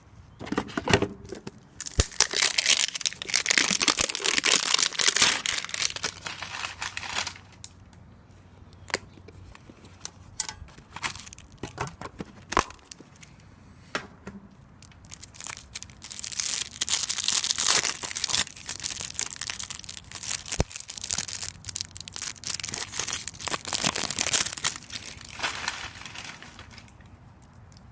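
A baseball card pack's wrapper being torn open and crinkled by hand, in two long spells of tearing and crackling with sharp clicks in between.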